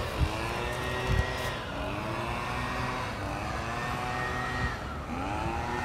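Road traffic on a bridge: several vehicle engines overlapping, their pitch slowly rising and falling as cars pass and speed up, over a steady hum of tyres. Two dull thumps come in the first second and a half.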